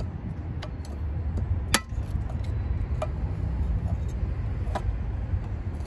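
Four sharp metallic clinks at uneven intervals, the loudest about two seconds in, as pliers work the springs and hardware of a 2005 Toyota Corolla's rear drum-brake shoe assembly. A steady low rumble runs underneath.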